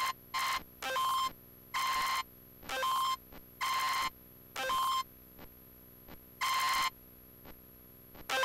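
Breakdown of a hardcore electronic track in a DJ set: a bright synth tone chopped into short bursts with silent gaps between, about eight times, with no beat. Near the end the tone holds steady.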